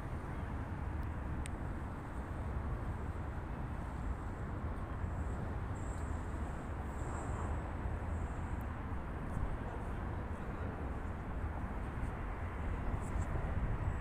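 Steady outdoor city ambience by the water: a continuous low rumble of distant traffic and wind, with no single event standing out.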